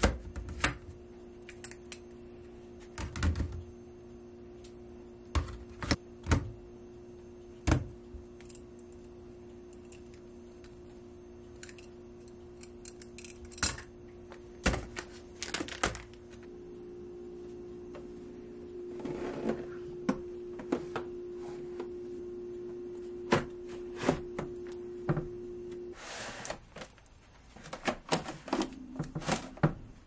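Plastic items clicking and knocking as they are set into plastic storage baskets and moved about by hand, with packets crinkling now and then. A steady low hum runs underneath and stops about four seconds before the end.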